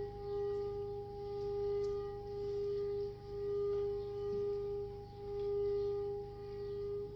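Crystal singing bowl ringing with one steady, sustained tone and fainter higher overtones, its volume swelling and ebbing about every two seconds.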